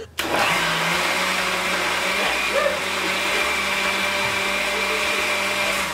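Countertop blender switched on and running steadily, pureeing a jar of red chile sauce for enchiladas.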